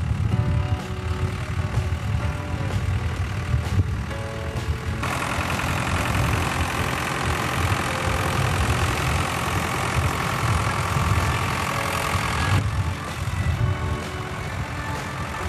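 Farm tractor's engine running with a low, steady throb as it pulls a disc plough through soil. From about five seconds in until near the end it is louder and brighter, with a rushing hiss over the throb.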